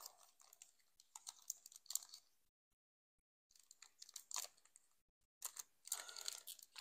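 Foil wrapper of a Pokémon card booster pack crinkling and tearing as fingers pick it open, in three faint spells of rustling.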